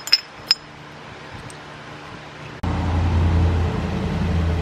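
Two light metallic clinks near the start. About two and a half seconds in, a loud, steady, low mechanical rumble starts abruptly.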